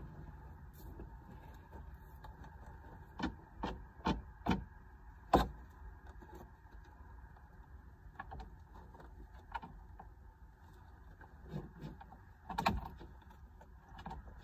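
Scattered sharp taps and knocks: a quick run of five about three to five and a half seconds in, and a few more later. They sound over a low steady hum, as hens shift and preen on a wooden roost.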